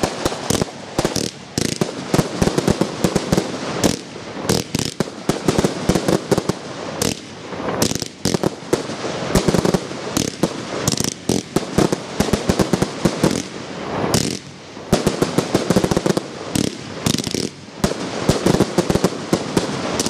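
Fireworks being fired at close range: a dense, rapid run of launches and bangs, many per second, with brief lulls about a fifth of the way in, near the middle and about two-thirds through.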